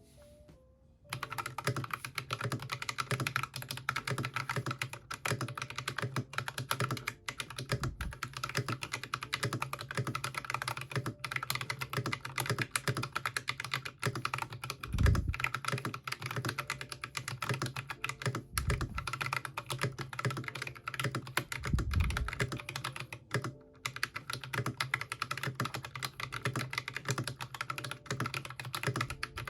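Mechanical keyboard fitted with Akko Ocean Blue switches and new keycaps, typed on fast and continuously from about a second in, with a few louder low thumps among the key presses.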